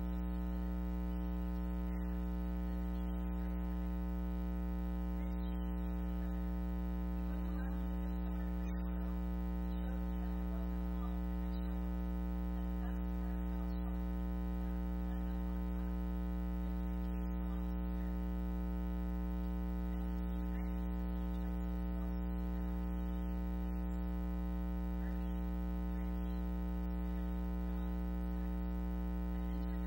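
Steady electrical mains hum, a constant low buzz with its overtones, unchanging throughout and standing in for the speaker's voice on the sound track.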